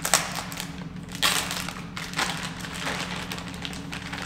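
Clear plastic packaging crinkling in several short bursts as a part is unwrapped by hand.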